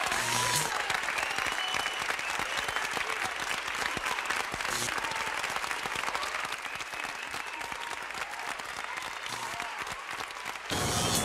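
Wind and road noise on a motorcycle-mounted camera's microphone while riding, a dense crackling rush. Near the end a deeper motorcycle engine sound comes up sharply.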